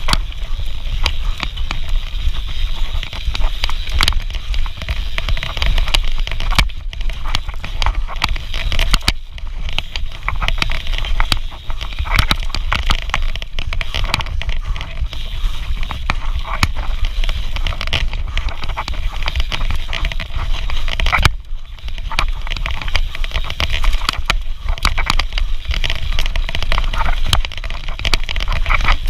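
Enduro mountain bike ridden fast down a rough dirt and rock trail: tyres crunching over the ground while the chain and frame rattle with many sharp clicks, over a steady low rumble of wind buffeting the microphone.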